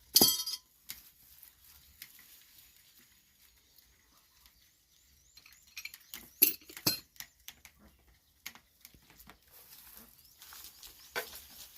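Sparse knocks and metallic clinks from handling well pipe and gear during the pump's retrieval. The loudest is a ringing metallic clink right at the start, with two sharp knocks about halfway through and another near the end.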